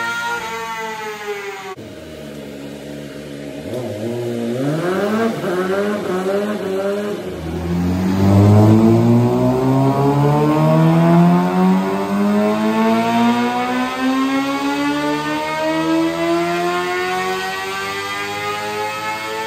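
2014 Suzuki GSX-R 750 inline-four through a cat-delete mid-pipe and M4 slip-on exhaust, run on a dyno. The revs fall away at first, then rise in a few short steps, then climb steadily for about twelve seconds in one long pull.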